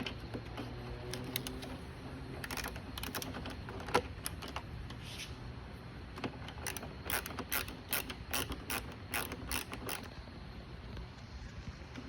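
Ratcheting driver clicking in short quick runs as the T20 Torx retaining screw of a 2019 Jeep Cherokee's outside door handle is backed out.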